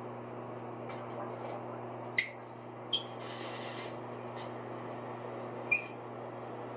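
Steady low hum and hiss with three short, sharp clicks or taps, the first about two seconds in, and a brief high hiss just after the second.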